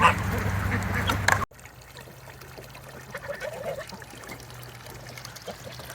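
Geese and ducks honking and calling around the feed, cut off abruptly about a second and a half in. After the cut come only faint scattered bird calls over a low background.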